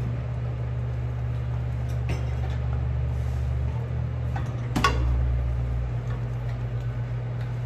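Wooden spatula stirring shrimp in sauce in a frying pan, with light scrapes and clinks and one sharper knock against the pan about five seconds in, over a steady low hum.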